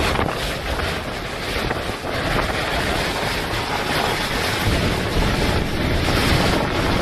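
Strong hurricane wind blowing hard across the microphone, a loud continuous gusting rush of noise.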